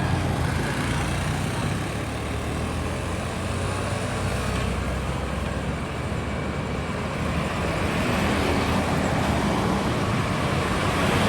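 Tour bus engine running with road and traffic noise, steady and growing a little louder in the second half.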